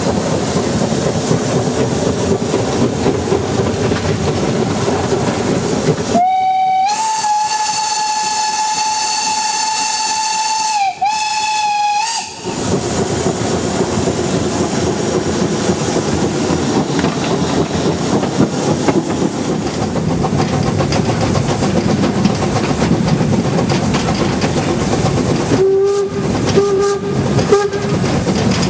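Narrow-gauge steam locomotive 99 4802-7 sounding its whistle in one long steady blast of about six seconds. The blast starts a little low, settles, and dips briefly near its end before one short last note. Before and after it, the moving train's running noise. Near the end, a lower-pitched steam whistle gives three or four short toots.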